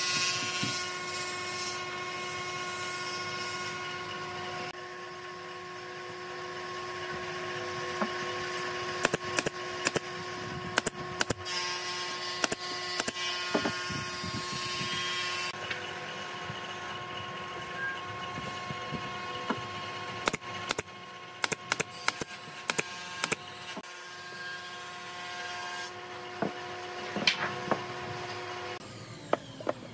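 Pine boards and legs knocking and clacking on a wooden workbench while they are handled. From about 9 seconds in there are many sharp knocks, some loud, over a steady background hum that stops near the end.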